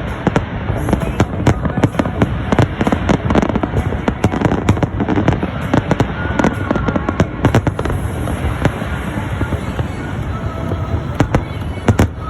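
Fireworks display: a dense, unbroken run of bangs and crackles, many per second, over music and voices.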